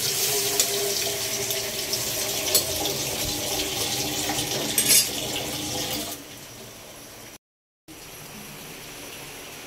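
Chicken broth boiling and bubbling in a metal wok while a metal ladle stirs it, with a couple of light clinks. About six seconds in, it drops to a softer, steady bubbling, broken by a brief gap.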